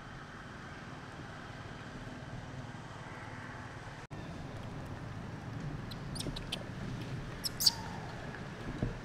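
A baby monkey squeaking: a few short, high-pitched squeaks in the second half, the loudest near the end, over a steady low background rumble.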